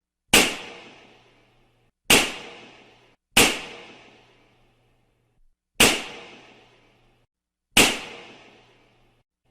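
Balloons bursting one after another: five sharp pops at uneven spacing, each followed by a short fading tail.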